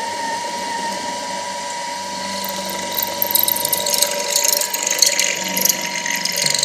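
A drill runs steadily, drilling the tap hole for an M8 thread through a metal bracket. From about three seconds in, scratchy cutting noise joins the steady motor whine as the bit bites into the metal.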